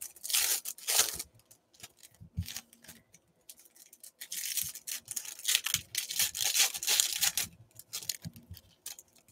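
Trading-card pack wrappers being torn open and crinkled by hand: a quick run of rips about half a second in, then a longer stretch of tearing and crinkling from about four to seven and a half seconds, with a soft knock in between.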